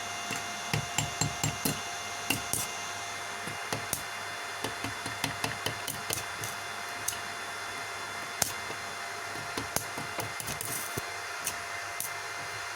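Stick (MMA) welding arc from an inverter welder at minimum current, giving irregular sharp crackles and clicks as the electrode is struck and sputters. Under it runs the welder's steady fan hum and whine.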